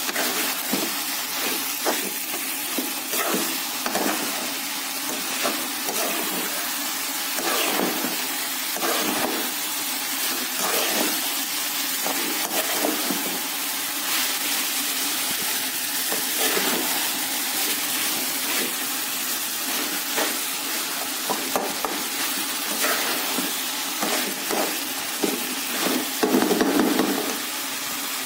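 Bitter gourd and meat sizzling as they fry in ghee in a steel pan, with a steady hiss and a slotted metal spoon stirring and scraping against the pan now and then.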